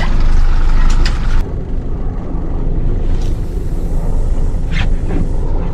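Boat engine running with a steady low rumble; the higher hiss over it drops away about a second and a half in.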